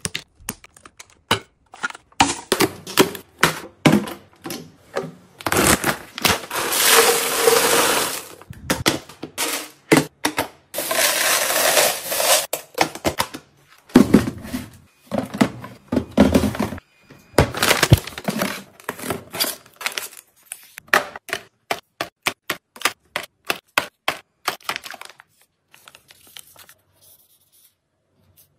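Household items being handled and set down one after another: a run of clicks and knocks, with stretches of rustling, crinkling noise in between. The sounds thin out to a few faint taps near the end.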